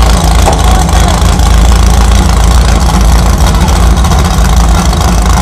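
Hot-rod pulling tractor's engine running loud and steady under heavy load as it drags the weight sled down the track.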